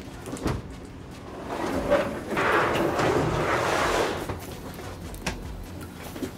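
Heavy rubber floor mat being dragged and slid across a cargo van's metal floor: a scraping rush for about two seconds in the middle, with separate knocks and thumps before and after.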